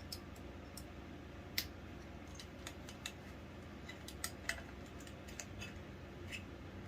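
Scattered small plastic clicks and taps as a battery is fitted to the battery connector of an opened smoke alarm and the unit is handled, the sharpest click about a second and a half in and another about four seconds in.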